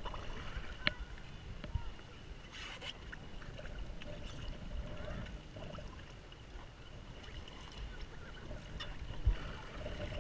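Lake water splashing and lapping around plastic kayaks while a swimmer climbs back onto one, with a few sharp knocks, the clearest about a second in and near the end.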